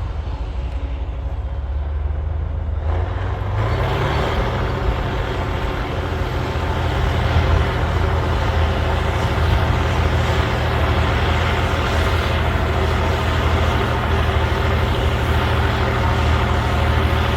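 Cat D9L bulldozer's diesel engine running, revving up about three seconds in and then holding a steady, loud pitch as the dozer pushes overburden.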